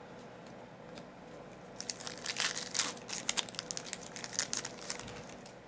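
Hockey card pack wrapper being torn open and crinkled, a dense crackling that starts about two seconds in and lasts about three seconds.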